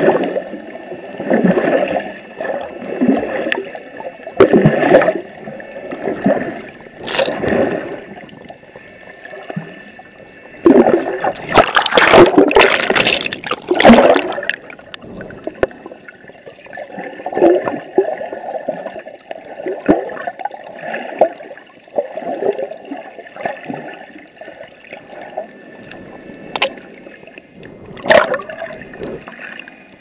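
Seawater gurgling and sloshing as heard through an action camera just under the surface. It swells every second or two, with a louder rushing stretch about eleven to fourteen seconds in.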